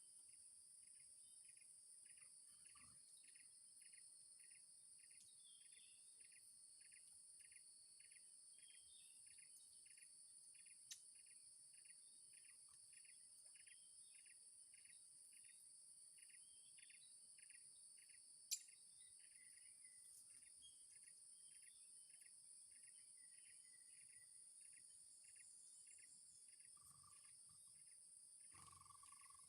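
Faint, steady high-pitched insect drone with a regular run of short chirps, about two a second. A single sharp click comes about two-thirds of the way through.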